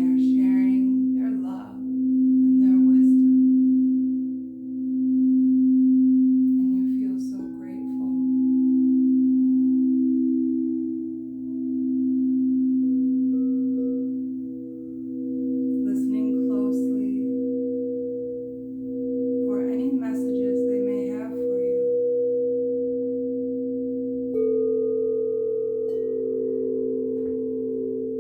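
Singing bowls ringing together in long, pure held tones that swell and fade in slow waves. About 24 seconds in, a higher bowl comes in sharply. A few brief hissing noises come and go over the tones.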